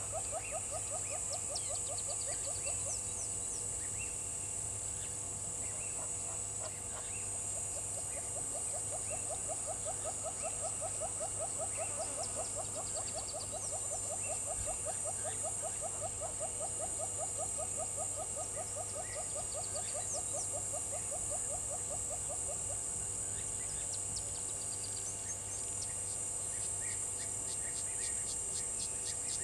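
African bush chorus at a waterhole: insects shrilling steadily at a high pitch, under a rapid, even, pulsing trill that fades out a little over halfway through. Scattered short high chirps sound throughout, and a fast ticking comes in near the end.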